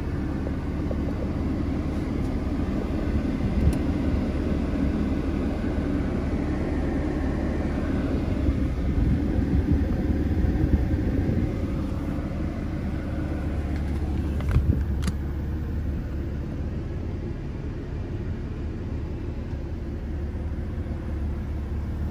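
2015 BMW M4's twin-turbo straight-six idling, a steady low rumble heard inside the cabin. A couple of brief clicks come about two-thirds of the way through.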